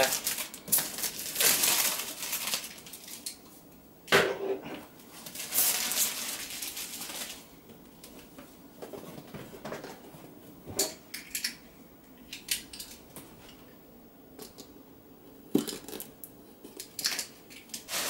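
A power-supply box being unpacked: plastic shrink-wrap cut with a box cutter and peeled off in bursts of rustling, then the cardboard box opened and handled, with scattered clicks and knocks and the crinkle of packaging.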